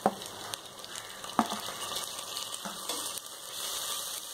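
Onions sizzling in hot oil in a pressure cooker as ginger-garlic paste is scraped in and stirred with a spoon, with a few sharp clicks of metal against the pot.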